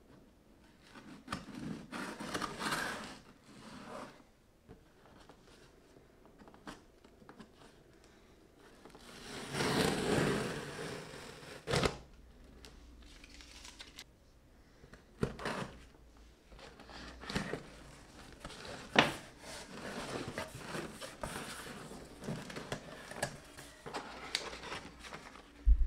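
Cardboard parcel being opened: a knife slits the packing tape, then the flaps are pulled open and crumpled brown packing paper rustles, with scattered sharp knocks and clicks on the cardboard.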